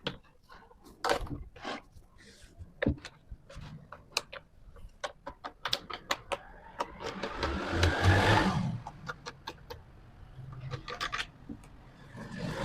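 Wooden parts being handled in a workshop: a series of sharp knocks and clicks of wood on wood, with a louder scraping rub about seven to nine seconds in.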